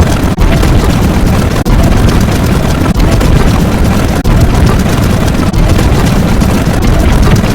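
Loud, heavily distorted noise filling every pitch from deep to high, made of a segment that repeats about every 1.3 seconds with a brief dropout between repeats.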